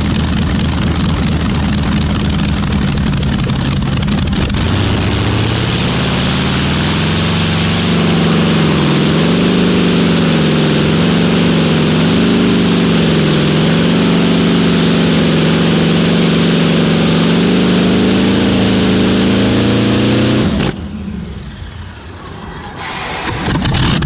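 Competition pulling tractor's engine running steadily, then revving up about four seconds in and running at full throttle under load as it pulls the sled, its pitch wavering up and down. It cuts off suddenly near the end.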